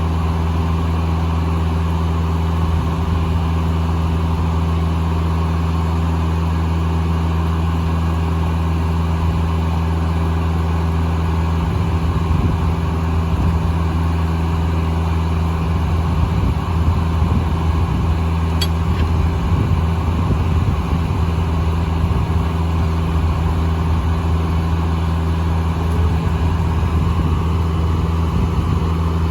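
Foley Belsaw circular sawmill running with its engine holding a steady low drone, which wavers a little through the middle stretch.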